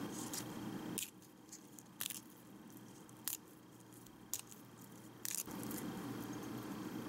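A leaf of red-leaf lettuce being torn by hand into small pieces: about five short, crisp tears spaced about a second apart, over a steady low hiss.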